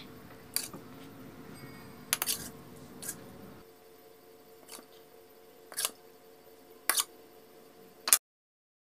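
Metal spoon clicking against a ceramic plate, a handful of sharp separate clicks spread over several seconds above a faint steady hum. The sound cuts off to silence near the end.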